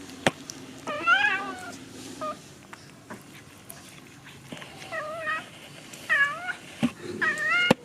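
Young kittens mewing: about five short, high-pitched mews that rise and fall in pitch, with a couple of sharp clicks in between.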